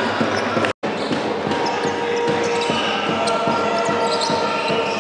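Basketball game sound: a ball being dribbled on the hardwood court over steady crowd noise. The audio cuts out for an instant a little under a second in.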